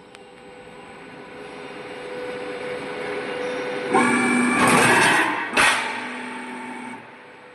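Two-tier roll forming machine for corrugated steel sheet running, its noise building steadily, then a loud harsh metallic stretch about four seconds in with a sharp knock a moment later, before it drops back near the end.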